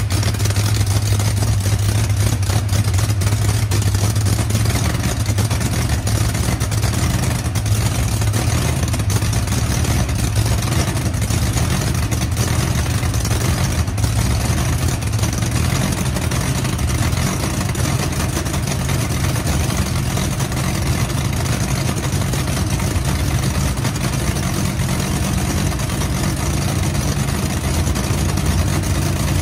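Fresh 959 Pat Musi Racing big-block engine in a Pro Mod drag car running on its first start-up, idling steadily and loudly throughout.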